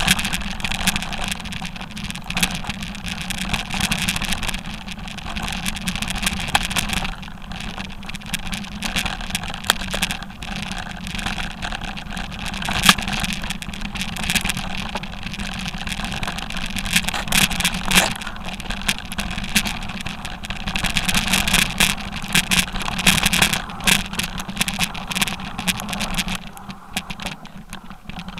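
Mountain bike riding over a rocky, stony trail, heard through a handlebar-mounted action camera: a steady rumble and rush of tyres and wind, broken by frequent sharp rattles and knocks from stones hitting the tyres and the bike and camera mount shaking. It eases and thins out near the end.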